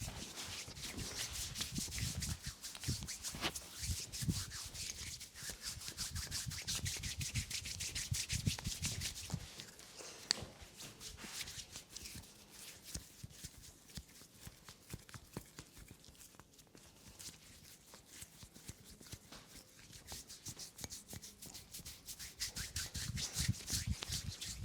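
Hands rubbing and kneading over bare skin during a body massage, a dense, rapid rubbing with some soft low thuds early on. It quietens from about ten seconds in and grows louder again near the end.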